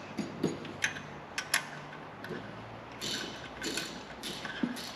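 Two sharp clicks, then three short rasping sounds from small hand work with parts or tools.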